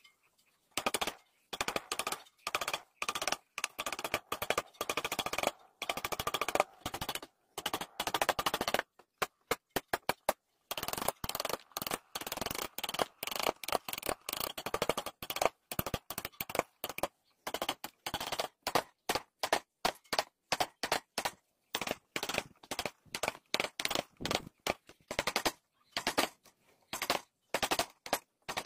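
Flat wood chisel cutting and paring into dry tree-trunk wood: each stroke gives a rapid, crackly run of clicks as the blade chatters through the fibres. The strokes follow one another in quick runs with short breaks between.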